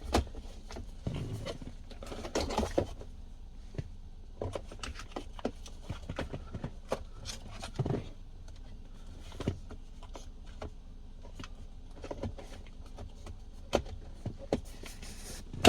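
Plastic car-interior parts being handled and fitted, with scattered clicks and scrapes, ending in a sharp snap as a piece clicks into place.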